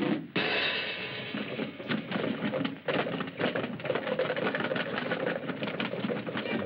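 Cartoon sound effects for a frantic scuffle: a dense, rapid rattling clatter that starts suddenly a moment in, with the music dropping away.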